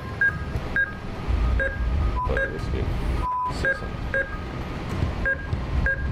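ATM keypad beeping as buttons are pressed: about eight short, same-pitched beeps at uneven intervals, with a longer, lower beep a little after three seconds in. A low rumble runs underneath.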